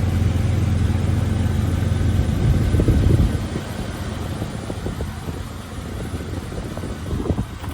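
Jeep Cherokee XJ engine idling steadily, running again after a crank-no-start repair; about three seconds in the low hum drops away, leaving a fainter noisy background.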